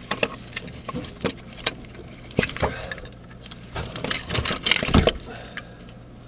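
Plastic transmission wiring-harness connectors being unplugged and the harness handled by gloved hands: irregular clicks, rattles and rustling, with a denser run of clicks and knocks about four to five seconds in.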